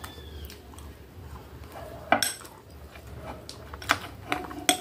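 Metal spoon clinking and scraping against a glass dessert bowl: sharp clinks with a short ring, the loudest about two seconds in and several more close together near the end.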